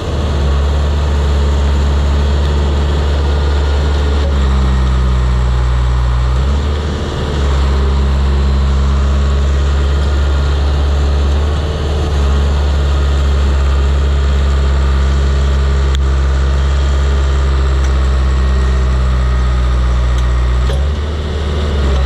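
1988 Cat D4C crawler bulldozer's diesel engine running hard as the dozer drives forward to a tree and sets its blade against the trunk. The engine note shifts several times, dipping briefly about seven and again about twelve seconds in.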